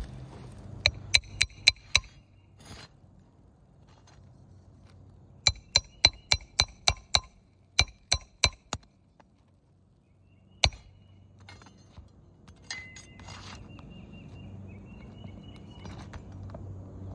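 Hammer striking metal on a roof repair, each blow ringing. The blows come in quick runs of four to seven, about three to four a second, with pauses between them and one lone blow later on.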